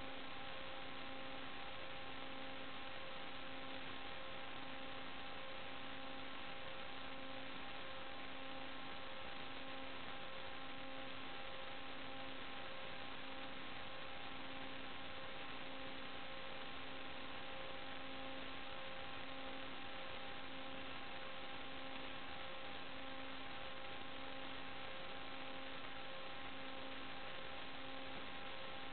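Steady electronic hiss with a constant hum and a few fixed tones, the lowest pulsing about once a second: interference noise on an analog FPV video link's audio, with nothing from the drone itself audible.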